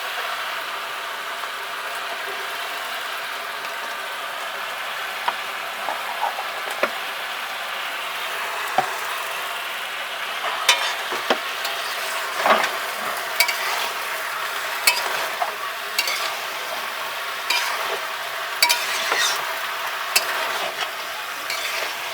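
Jackfruit curry sizzling as it fries in a pan, stirred steadily. From about halfway, sharp scrapes and knocks of the stirring utensil against the pan come every second or so.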